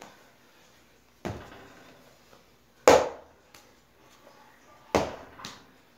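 A lump of wedged porcelain clay is knocked down onto a wooden board while being shaped into a mound: three thuds about two seconds apart, the middle one loudest, with a couple of lighter knocks between.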